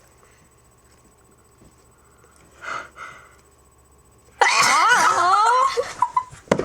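A girl's pepper-induced sneeze: two short catching breaths, then about four and a half seconds in a loud, drawn-out voiced sneeze.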